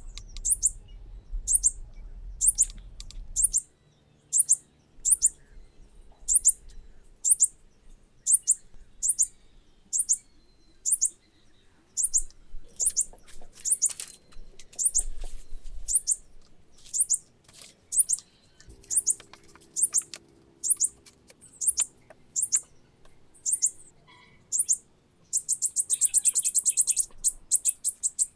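A bird chirping: a short, high chirp repeated evenly a little over once a second, breaking into a quick run of chirps near the end.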